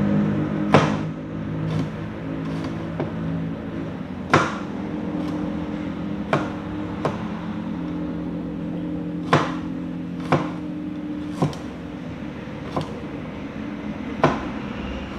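Cleaver chopping garlic on a plastic cutting board: about a dozen sharp, irregularly spaced knocks, over steady low tones.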